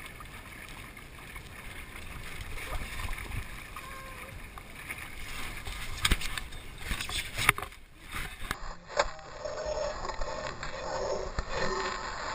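Water splashing along the hull of a 470 sailing dinghy under way, with wind noise on the camera's microphone. A couple of sharp knocks past the middle.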